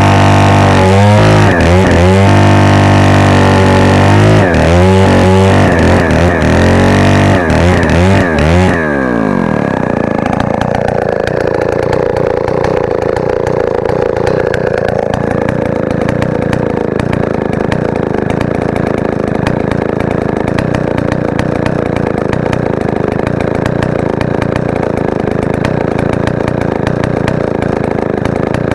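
Stihl 090 AV chainsaw's 137 cc two-stroke engine running at high revs, its pitch dipping and recovering several times. About nine seconds in, the throttle is released and the revs fall away to a steady idle that lasts to the end.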